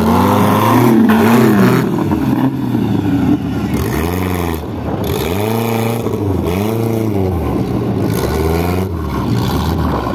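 Off-road buggy engine running and being revved in repeated blips, its pitch rising and falling about once a second over a steady idle, loudest in the first two seconds.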